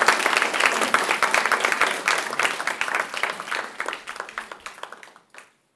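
Audience applauding after a talk, the clapping thinning out and dying away over about five seconds.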